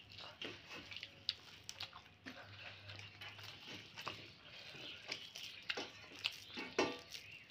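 Quiet eating sounds: chewing and scattered small mouth clicks and smacks, with soft squishes and taps of food on the plate. A low steady hum runs under the first half.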